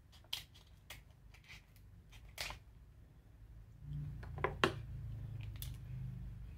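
Kitchen shears snipping through a mini lobster tail's shell: a handful of sharp, separate crunchy snips, then more shell cracking a little later. A low hum comes in about four seconds in.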